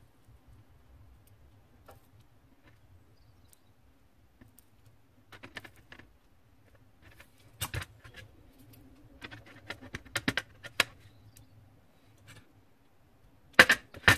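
Scattered clicks and taps of soldering tools and small metal pendant parts being handled and set down on a metal tray and worktop, with a cluster of taps partway through and the loudest knocks near the end.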